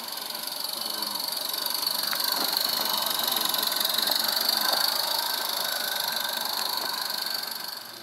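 Garden-scale locomotive hauling coaches running past close by: a steady hiss-like running sound that swells to a peak about halfway, fades, and cuts off shortly before the end.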